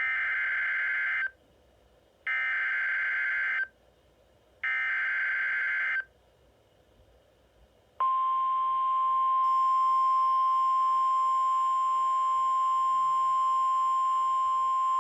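Emergency Alert System activation on NOAA Weather Radio: three short bursts of SAME digital header data about a second apart, then, about eight seconds in, the steady 1050 Hz Weather Radio warning alarm tone begins and holds. It announces a flash flood warning.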